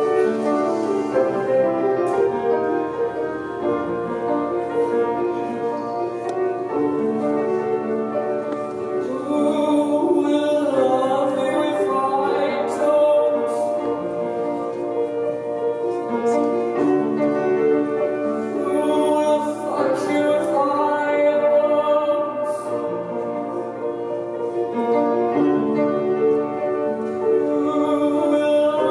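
A woman singing slow, wavering phrases over sustained piano chords.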